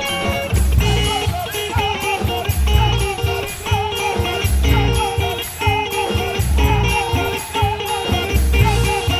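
Gospel-style guitar solo: a lead melody with bent, wavering notes played over a backing of bass and percussion with a steady pulse.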